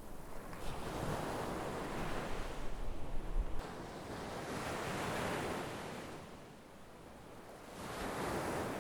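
Sea waves breaking and washing up on shore, rising and falling in about three surges.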